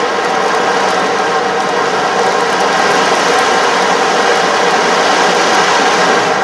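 Ocean drum played continuously: beads rolling across the drumhead as the frame is tilted, making a steady rushing wash like ocean waves.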